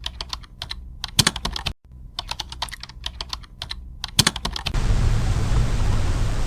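Computer keyboard typing, a quick irregular clatter of key clicks with short pauses. About four and a half seconds in it cuts off suddenly and a steady rushing noise takes over.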